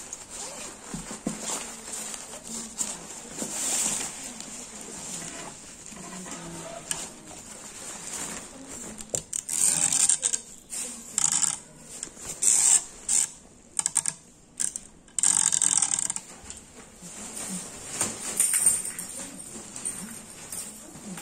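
Rustling and crinkling of a collapsible fabric cat tunnel and its fabric bag as they are handled and unpacked, with loud, uneven bursts of rustling through the middle.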